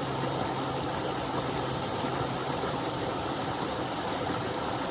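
Small waterfall rushing steadily: a continuous, even noise of falling water.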